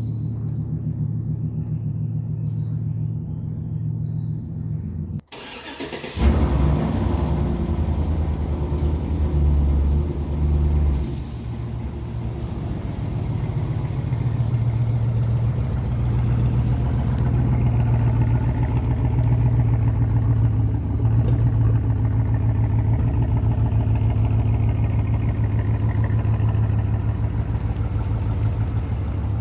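Pickup truck engine running at idle with an uneven low beat, the truck diagnosed with a cylinder 2 misfire. About five seconds in the sound cuts out briefly and comes back louder and heavier for several seconds before settling into a steady idle.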